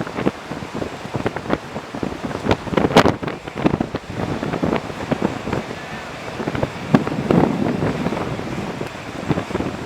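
Hurricane Sandy's storm wind buffeting the microphone in irregular gusts, with many sharp crackling knocks and a rushing of storm surf beneath.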